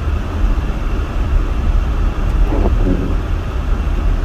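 Steady cabin noise of a van driving on a snowy road: a low engine and tyre rumble, with a faint hiss above it.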